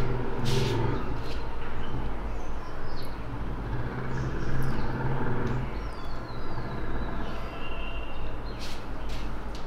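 Steady low background hum that eases off about six seconds in, with faint high chirps and a few light clicks.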